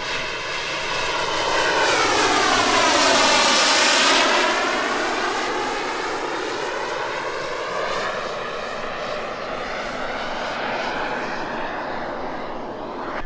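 A giant-scale RC Fiat G91 model jet's EvoJet 220 turbine runs as the jet flies past, a rushing turbine whine with a flanging sweep. It swells to its loudest about three to four seconds in, then fades to a steadier, lower level as the jet flies away.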